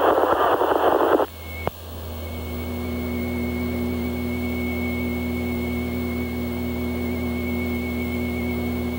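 Two-way radio static that cuts off about a second in, then a single click, then a steady electrical hum with a thin high whine over it.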